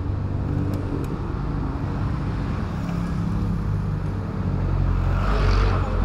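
Motor scooter engine idling steadily amid street traffic, with a passing vehicle's rumble swelling near the end.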